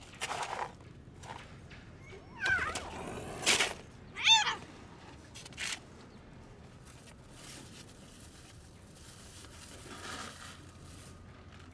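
Stray cat meowing twice, the second call louder, with a short noisy burst between the calls and scattered soft clicks.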